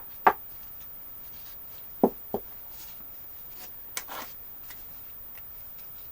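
A few light clicks and knocks as 18650 lithium-ion cells are handled, picked up and set down: two near the start, two more about two seconds in, and a brief rattle about four seconds in.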